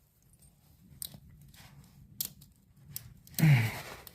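A few light, separate clicks and taps as a cable is worked into a small motocross carburetor, then a short low voice sound, falling in pitch, near the end.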